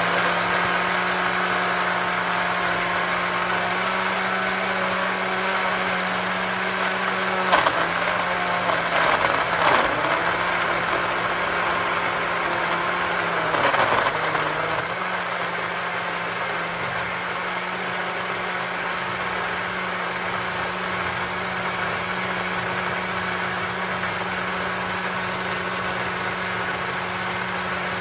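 KitchenAid Diamond blender motor running on its purée setting, blending a thick smoothie of oats, coconut milk and greens: a steady hum whose pitch dips briefly a few times in the first half, then runs evenly as the mix turns smooth.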